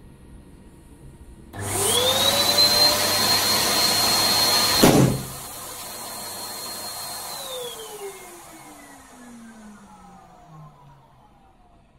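Electric balloon pump starting up, its motor whine rising to a steady pitch as it inflates a 12-inch crystal latex balloon, which bursts with a loud pop about five seconds in. The pump runs on briefly, then is switched off and its whine falls away as the motor winds down.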